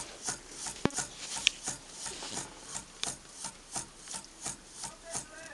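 Homemade hybrid thermoacoustic hot-air engine running over a flame, beating out regular rasping strokes about three times a second, like a metronome. Two sharper clicks stand out about one and one and a half seconds in.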